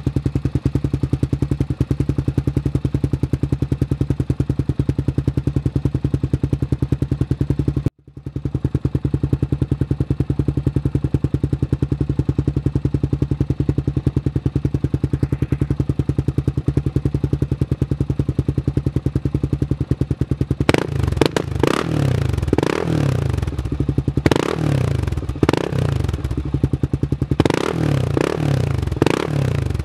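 Honda TRX400EX ATV's single-cylinder four-stroke engine running through a Sparks aftermarket exhaust: idling steadily for about twenty seconds, then blipped repeatedly with the throttle, revs rising and falling quickly again and again.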